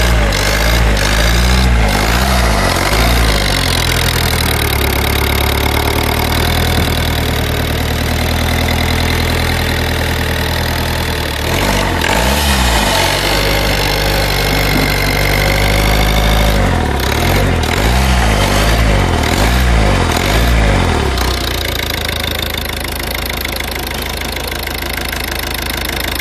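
2012 Ford Focus 1.6 TDCi four-cylinder diesel engine (T1DB) running: revved up and down a few times, then settling back to a steady idle for the last few seconds.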